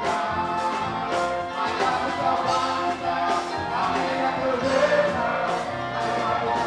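Gospel music with group singing and a steady beat.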